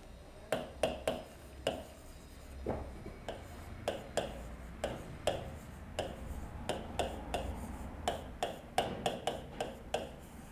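Letters being written by hand on a classroom board: an irregular run of short, sharp taps and clicks as each stroke lands, with a faint low hum underneath.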